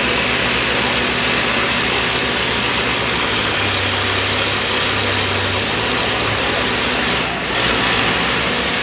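Backhoe loader's diesel engine running steadily, its low note strengthening for a couple of seconds in the middle.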